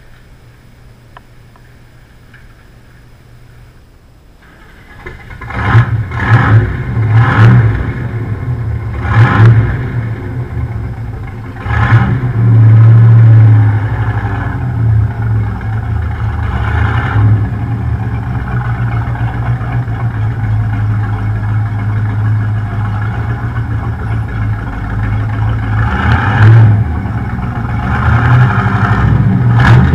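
1967 Corvette 427/435-hp (L71) big-block V8, a high-compression solid-lifter engine, starting up about five seconds in. It is blipped sharply several times, held at higher revs briefly, then settles to a steady idle, and revs again near the end as the car pulls out.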